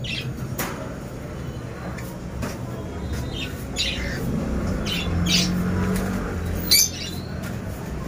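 Caged small parrots, cockatiels among them, giving short shrill squawks and chirps, about eight scattered calls, the loudest one near the end.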